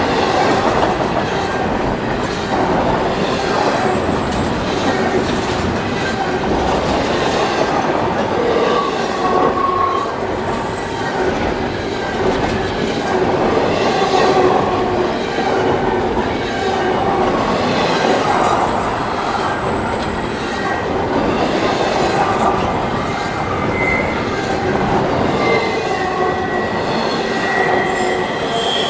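Double-stack container train's well cars rolling past: steady noise of steel wheels on rail, with brief high-pitched wheel squeals coming and going.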